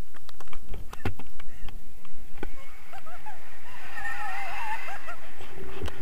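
Wind rushing over an action camera's microphone during a tandem paraglider launch, with scattered knocks and clatter in the first few seconds. About four seconds in, a high, wavering squeal from a voice rises and falls as the pair lift off.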